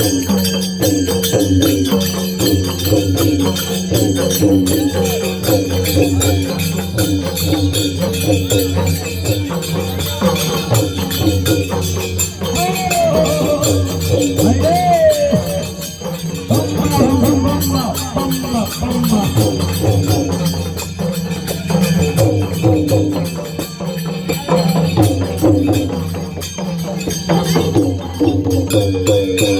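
Folk devotional music with steady jingling, rattling percussion under a short melodic phrase that repeats about once a second, and a few sung or chanted lines near the middle.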